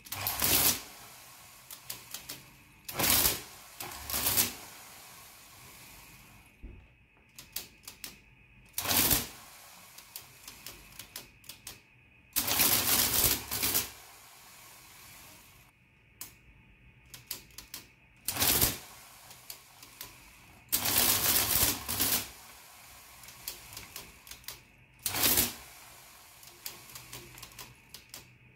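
Olivetti Tetractys electromechanical printing calculator, running without its body, working through calculations. Clusters of light key clicks alternate with short bursts of clattering as the motor-driven mechanism cycles and prints, about eight bursts in all; the longest, around a second and a half, comes a little under halfway through.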